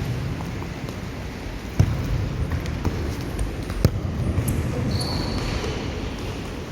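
Futsal ball being kicked and bouncing during play: two sharp thuds about two seconds apart over a steady low rumble, with a brief high squeak about five seconds in.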